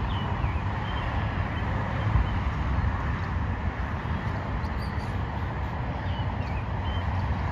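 Steady rumble and hiss of passing highway traffic, with a few faint, short, high peeps from birds scattered over it.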